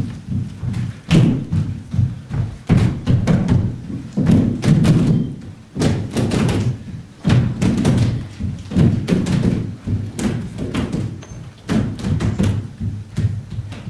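Loud, fast, irregular thumps and knocks, one after another with a heavy low boom under them.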